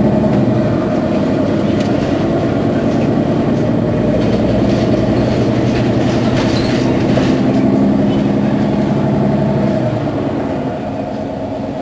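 Mercedes-Benz Citaro facelift city bus's diesel engine idling steadily at a stop, dropping slightly in level about ten seconds in.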